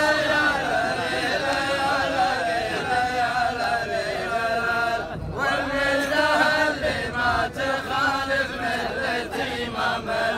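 A row of men chanting a line of rajaz poetry together in unison, the chorus that repeats the poet's verse. There is one short break about halfway through.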